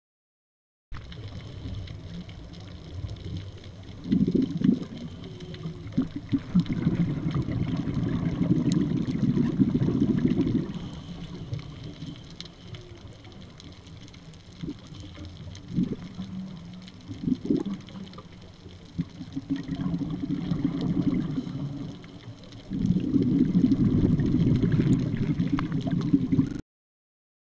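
Scuba diver's exhaled bubbles gurgling underwater in several long bursts with quieter stretches between breaths, heard through the camera's underwater housing. The sound starts suddenly about a second in and cuts off just before the end.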